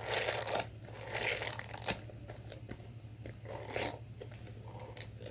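Scratchy rubbing on the textured side of an avocado purse fidget toy: a few short scratching bursts with a sharp click about two seconds in.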